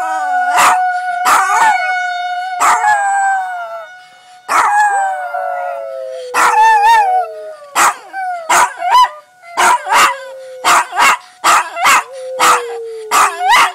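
Small dog howling: long howls that slide slowly down in pitch, broken by short yips and barks, which come quicker, about two a second, in the second half.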